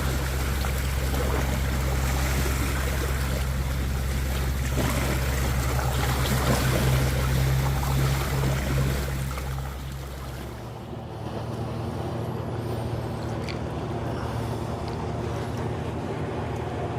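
An engine running steadily with a low, even hum; about ten seconds in its low note drops away and it settles to a lighter, steadier running.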